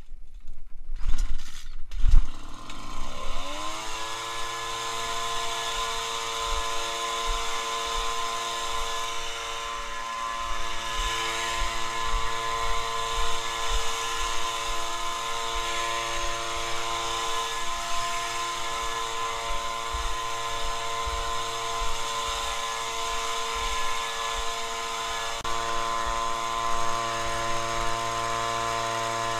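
Homelite two-stroke gas leaf blower started warm on the run setting: it catches after a couple of pulls about two seconds in. Its engine note rises quickly, then runs steadily at constant speed.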